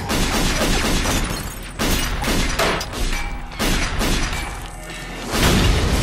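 Movie action sound effects: a run of loud hits with glass shattering, over a music score, and about five seconds in a deep boom as the car starts to explode.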